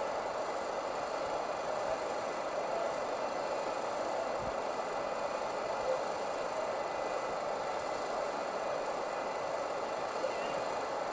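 Steady rush of a shallow river's current running over stones and through a logjam.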